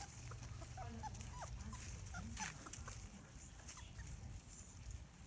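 Three-and-a-half-week-old Labrador puppies giving short, high squeaks and whimpers, several in the first three seconds and fewer after, with rustling.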